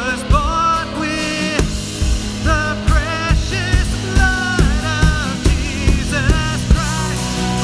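Live worship band playing a song: voices singing the melody over acoustic guitar, electric guitar, bass guitar and a drum kit keeping a steady beat.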